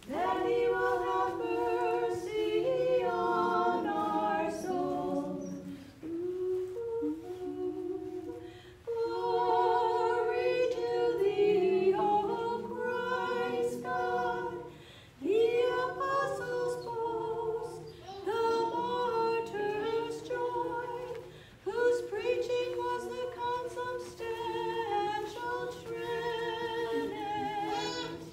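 Voices singing an unaccompanied Orthodox hymn, as is sung during the procession around the table in the crowning service. The phrases are broken by short pauses for breath, with vibrato on the held notes.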